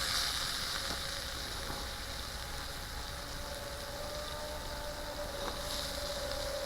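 Steak sizzling on a grill grate over a campfire: a steady, even hiss.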